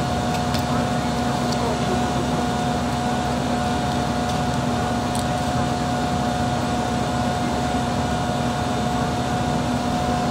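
An engine running at a steady speed: a constant drone with an even hum, and a few faint clicks in the first half.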